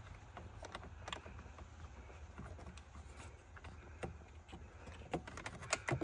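Faint scattered clicks and light rattles of plastic and metal parts as hands work the ignition switch loose from the steering column, with a few sharper clicks near the end.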